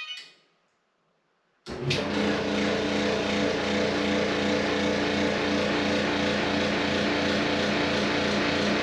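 Electrolux clothes dryer running, starting about a second and a half in: a steady hum with a regular pulsing rumble about twice a second. This loud thunderous noise comes from worn drum support rollers.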